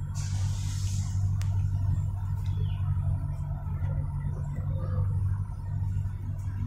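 Steady low motor rumble, with a brief hiss in the first second.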